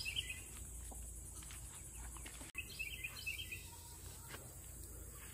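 Birds chirping in two quick bursts, one right at the start and another about three seconds in, over a faint background with a few light clicks.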